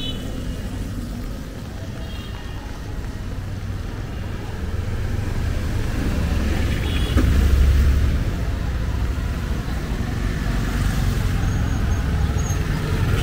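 Street traffic on a wet road: vehicle engines passing close. A small truck going by about seven seconds in gives the loudest moment, a low engine rumble, and motorcycles pass near the end.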